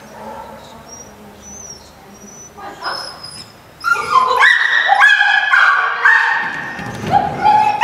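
Groenendael (black Belgian Shepherd) barking and yipping repeatedly in quick, high-pitched calls as it runs an agility course, starting about four seconds in.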